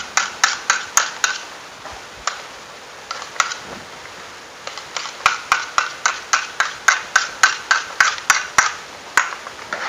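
A metal spoon clinking against a cooking pot while rice is stirred, in quick ringing strikes about three to four a second. There is a short run at the start, a pause, then a longer steady run from about five seconds in.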